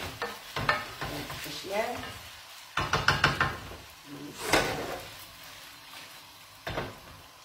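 Mezze maniche pasta being stirred in a frying pan with rendered guanciale, over a faint sizzle. A utensil knocks against the pan, in a quick run of knocks around the middle and with a single louder knock a little later.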